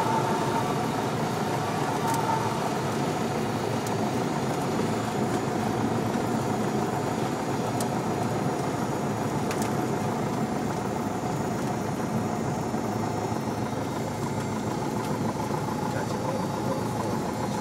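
A Cessna 172's piston engine running steadily at low power, heard from inside the cabin.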